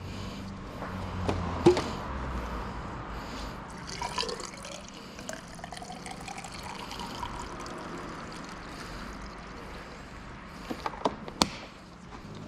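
Engine oil pouring in a steady trickling stream, its pitch rising slightly as it goes, with a few sharp clicks near the end.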